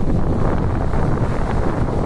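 Wind buffeting the microphone with a steady, uneven rumble, over small waves washing onto a sandy beach.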